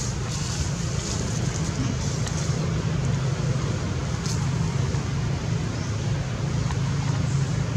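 A steady low rumble with an even hiss above it and a few faint ticks.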